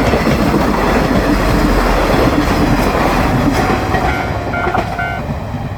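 Shikoku Mannaka Sennen Monogatari diesel railcar train (KiHa 185 series) passing over a level crossing: a loud rumble of the train and its wheels, with clicks over the rail joints. The Japanese crossing bell's repeating ding is buried under the train and heard again in the second half, as the train noise begins to ease.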